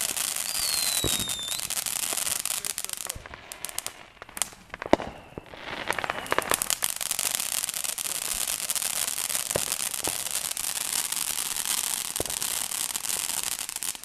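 Ground firework spraying sparks with a dense, continuous crackle. About three to five seconds in it thins to a few sharp pops, then the thick crackling comes back and stops abruptly at the end.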